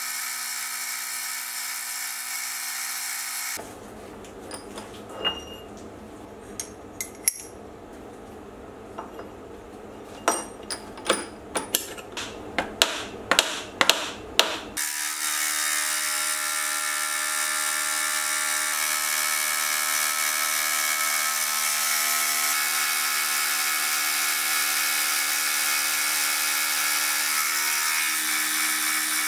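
Mini milling machine face-milling a hot-rolled mild steel bar to clean up and square its sides, a steady machine hum of several tones. For about eleven seconds in the middle the cutting stops and a small hammer taps a round spacer on the bar to seat it in the vise, sharp knocks that come faster and louder before the milling starts again.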